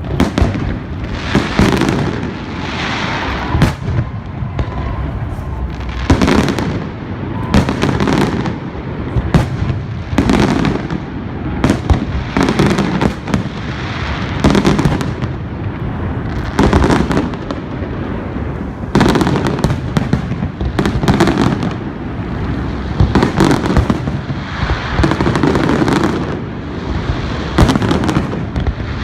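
Fireworks display: aerial shells bursting in a steady run, about one loud bang a second, with rumbling and crackling between them.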